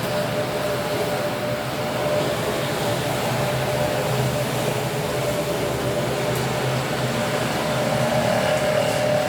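Steady rain with a steady mechanical hum over it, slowly growing louder toward the end.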